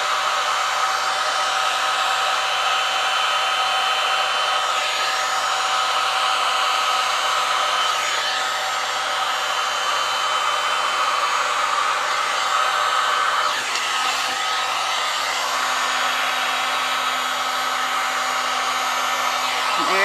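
Handheld electric heat gun blowing hot air over wet epoxy resin: a steady rushing noise with a constant fan whine.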